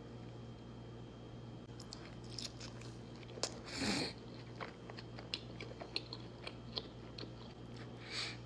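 Close-miked eating sounds of fried chicken: crunchy bites and chewing. Scattered clicks and crackles begin about two seconds in, with a louder crunch about four seconds in and another near the end, over a steady low hum.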